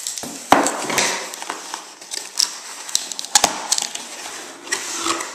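Plain white cardboard box being opened by hand: cardboard scraping and rubbing, with repeated sharp snaps and knocks as the lid flaps are pulled free, the loudest about half a second in.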